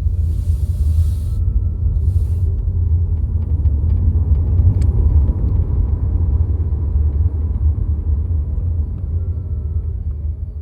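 2020 Kia Niro EV on the move, heard in the cabin: a steady low road rumble, with a scatter of faint sharp creaking ticks in the middle and short bursts of hiss near the start.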